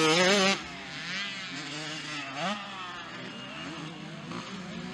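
Motocross bike engines revving hard, rising and falling in pitch as the bikes race. The engines are loud for the first half second, then sound farther off, with several more rising revs.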